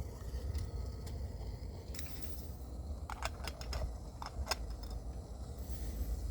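Light clinks and taps of coffee-making gear being handled, about six in quick succession around the middle, over a steady low rumble.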